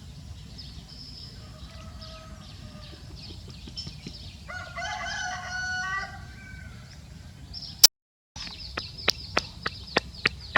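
Rooster crowing: one strong crow lasting nearly two seconds, starting about four and a half seconds in, after a fainter one a couple of seconds earlier. After a brief dropout near eight seconds, a run of sharp clicks comes about three a second.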